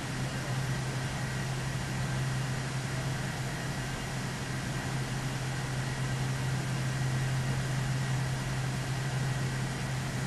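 Steady low hum with an even hiss over it, unchanging throughout: background machine noise.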